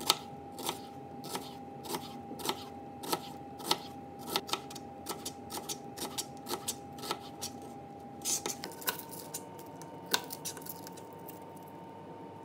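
Chef's knife slicing an onion on a plastic cutting board: a light knock of the blade on the board about every two-thirds of a second. After about eight seconds the slicing stops, and there is a brief scrape and a few scattered taps.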